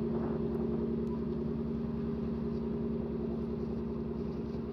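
A cargo ship's four-stroke diesel engine running steadily as she passes close by: a steady hum over a fast, even low throb.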